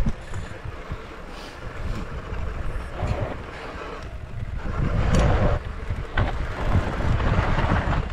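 Wind buffeting the microphone over the rumble of a mountain bike rolling on rough ground, with a few knocks from bumps about five to six seconds in.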